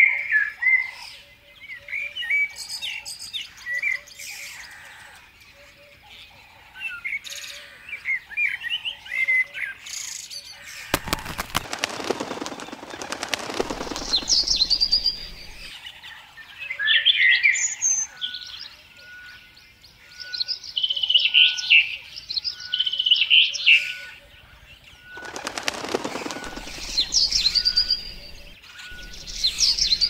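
Small songbirds chirping and calling in quick, varied short notes, with a faint, evenly repeated note underneath. Two bursts of wing flapping break in, about a third of the way through and again near the end, as a bird flies in to land.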